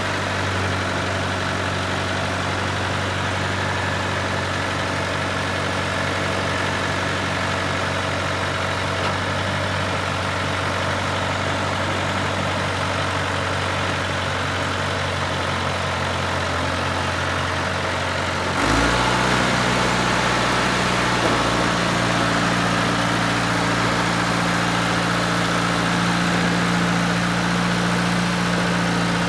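John Deere 2850 tractor's four-cylinder diesel engine running steadily at low speed while the tractor is driven slowly. About two-thirds of the way through, the engine note changes suddenly and gets a little louder, then holds steady.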